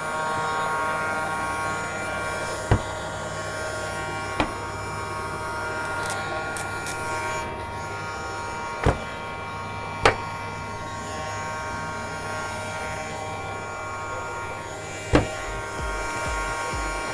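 Small electric motor of a battery-powered frog bubble toy running with a steady buzzing hum, broken by five sharp clicks at uneven intervals. A low pulsing begins near the end.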